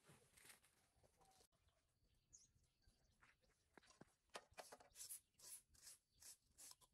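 Faint, repeated scratching strokes of yard tools scraping leaves and debris across a concrete lane, coming faster in the second half at about three strokes a second.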